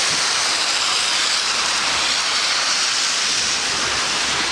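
Steady hiss of heavy rain on a wet, flooded street, with a faint low rumble joining about three seconds in.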